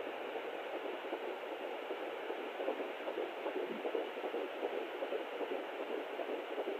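Handheld Sonoline fetal Doppler playing a 12-week fetal heartbeat through its small speaker: a rapid pulsing over steady hiss. The owner thinks it may be two heartbeats slightly out of time with each other, a sign of twins.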